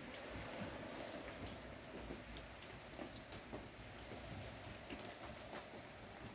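Falling wet snow pattering steadily: many small ticks over a soft hiss.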